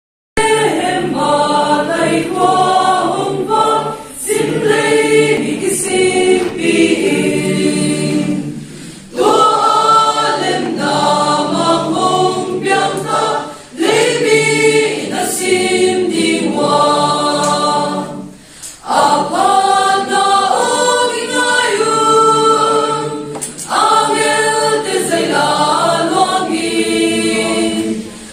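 Mixed choir of women's and men's voices singing a hymn together, in phrases with a short break for breath about every four to five seconds.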